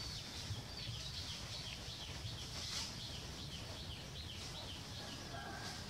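Small birds chirping: a busy string of short, high, falling chirps, over a low steady rumble.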